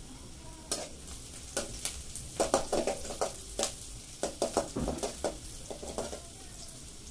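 Metal spatula stirring and scraping sliced onions frying in an aluminium kadai: a series of irregular scrapes and metal-on-metal clinks over a faint frying sizzle. The stirring starts just under a second in and stops about a second before the end.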